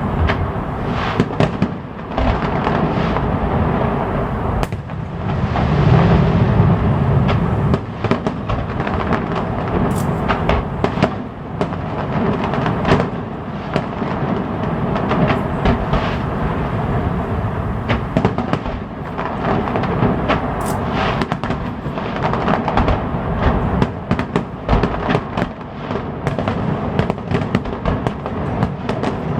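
Aerial fireworks display: a continuous barrage of overlapping bangs, booms and crackles with no let-up.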